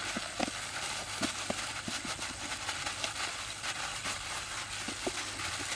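Hands in plastic gloves mixing raw chicken legs in marinade in a steel bowl: wet handling noise with many small scattered clicks and taps.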